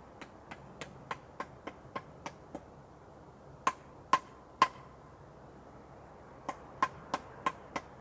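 A run of sharp clicks, each with a brief ring, about three a second in three groups: nine lighter ones, then three louder ones about halfway through, then five more near the end.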